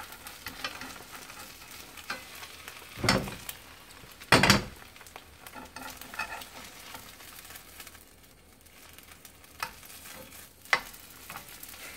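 A fried egg sizzling faintly in a nonstick frying pan while tongs scrape and knock against the pan, with two sharp clacks about three and four and a half seconds in and a few lighter ones near the end.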